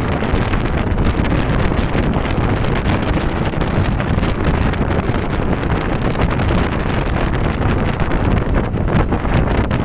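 Steady rain falling, mixed with a heavy rumble of wind on the microphone.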